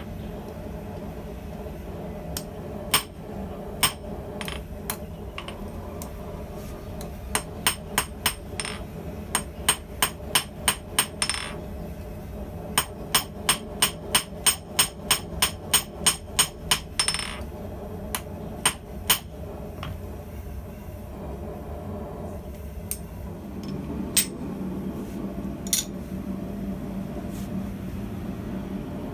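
Hand hammer striking red-hot round steel on a steel anvil block. A few single blows come first, then two quick runs of ringing strikes at about three to four a second, then a few scattered knocks near the end, over a steady low hum.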